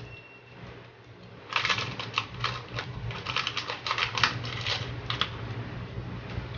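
Crinkling plastic packet of seasoned nori seaweed snacks being handled, a dense run of irregular crackles starting about one and a half seconds in.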